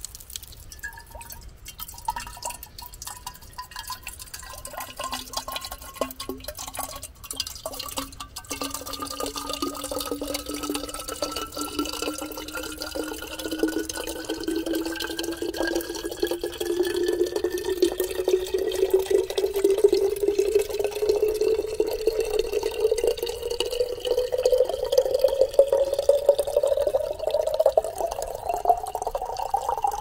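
Water pouring into a container, its ringing pitch rising steadily as the container fills. For the first several seconds there are scattered drips and splashes before the stream settles.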